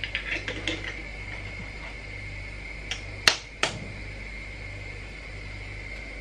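A table knife tapped against a raw egg's shell to crack it: three sharp clicks about three seconds in, the middle one loudest, over a steady low hum. Light crackling in the first second.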